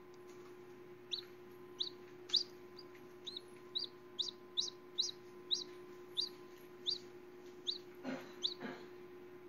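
A hatching chicken chick peeping inside its cracked eggshell: a run of short, high, falling peeps at about two a second, with two brief scratchy scuffles near the end.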